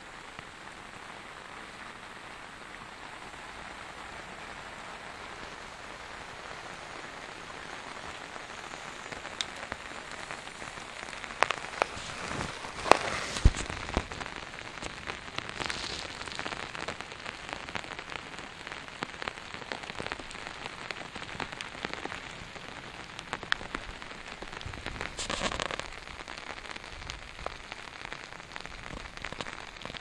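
Steady rain falling, with separate drops striking a woven tarp close by. The single drop hits become louder and more frequent about ten seconds in.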